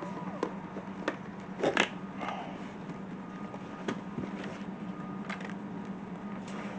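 Scattered clicks and light knocks of intake-kit parts being handled during assembly, the loudest a quick pair of clacks just under two seconds in, over a steady low hum.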